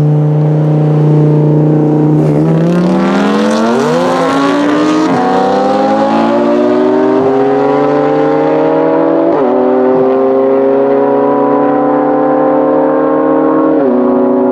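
Audi R8 V10 Plus's V10 with a Capristo exhaust and a BMW M4 drag racing from a standing start: engines held at steady high revs, launching about two seconds in, then accelerating hard, rising in pitch through four upshifts while fading into the distance.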